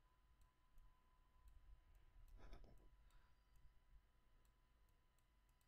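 Near silence: faint room tone with a few faint scattered clicks and a faint soft sound about two and a half seconds in.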